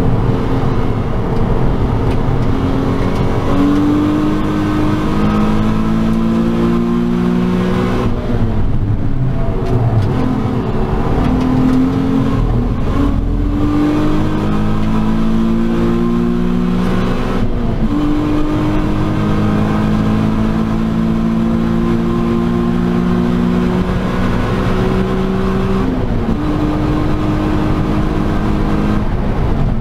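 Nissan 350Z's 3.5-litre VQ35HR V6 heard from inside the cabin, pulling hard at high revs, its pitch climbing in long rises through the gears. There are two brief lifts off the throttle in the first half, and the pitch drops at upshifts about two-thirds of the way in and again near the end.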